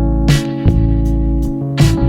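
Background instrumental music with guitar over held notes, and a sharp hit about every second and a half.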